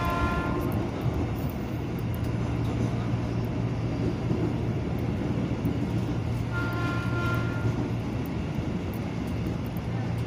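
Commuterline electric train running, heard from inside the carriage: a steady rumble of wheels on the track with a low hum. A brief higher tone rings twice, near the start and about two-thirds of the way through.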